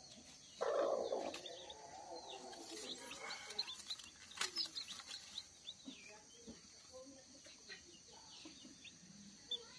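Newly hatched village chicks peeping over and over in short, high, falling notes. About half a second in, the brooding hen gives one loud, lower call. A sharp rustle follows about four seconds in, as a hand reaches into the straw under her.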